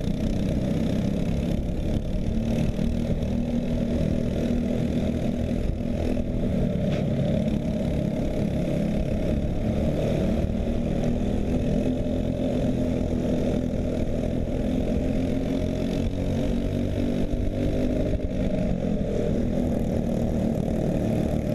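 Racing kart's single-cylinder four-stroke Briggs & Stratton LO206 engine running hard on track, its steady note rising and falling a little through corners and straights.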